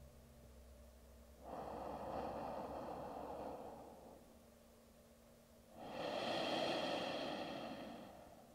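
A woman's slow, deep breaths, two long airy swells each lasting about two and a half seconds, with a quiet pause between them.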